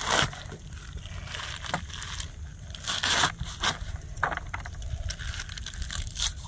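Fresh spinach leaves and stems being sliced against a curved hand-held iron blade: irregular crisp snips and scrapes, the loudest at the very start and about three seconds in.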